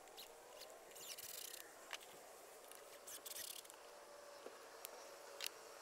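Faint scraping and a few light taps and clicks over a quiet background.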